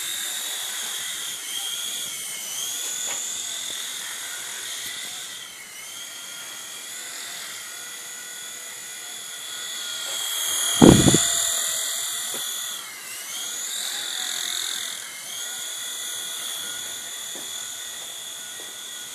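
Small electric helicopter's motor and rotor making a high whine that rises and falls in pitch as it is flown, with one loud knock about halfway through.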